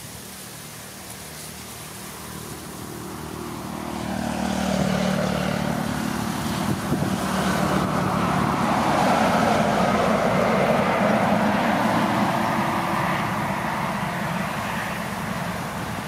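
Distant engine drone that swells over several seconds and then slowly eases.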